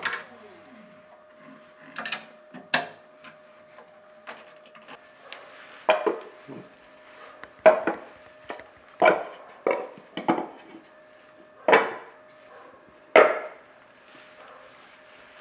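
Wooden pieces knocking and clattering: a dozen or so sharp knocks at uneven intervals, the loudest in the second half, over a faint steady hum.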